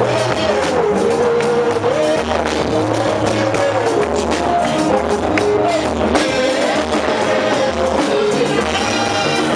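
Church choir singing a praise song with instrumental backing, over a steady beat.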